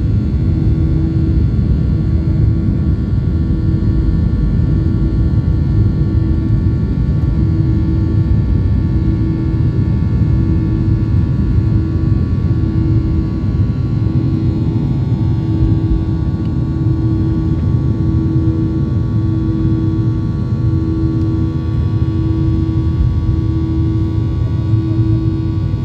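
Jet engines of a Ryanair Boeing 737 at takeoff thrust, heard from inside the cabin beside the wing. A loud, steady rumble runs with a drone that throbs about once a second, through the takeoff roll and lift-off.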